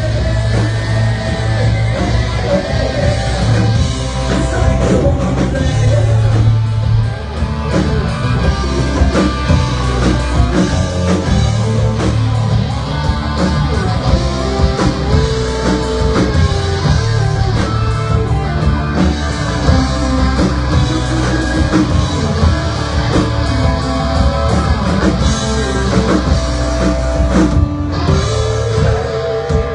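Live rock band playing a song: a singer over electric guitar and drums, steady and loud.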